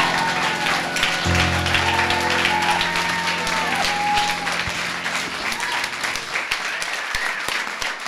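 Audience applause with a few voices calling out as a song ends, over the keyboard's final held chord, which cuts off about six and a half seconds in.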